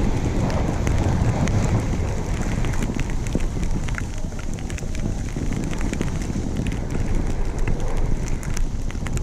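Snowboard sliding down through fresh snow, a steady hiss with many small crackling ticks, under wind buffeting the microphone with a low rumble.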